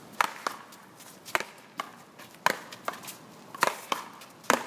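A one-wall paddleball rally: about nine sharp knocks as solid paddles strike the ball and the ball smacks off the wall, mostly in close pairs about a second apart.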